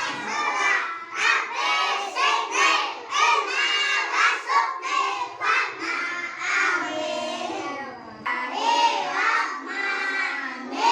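A group of young children singing together in short rhythmic syllables, with a brief break about eight seconds in.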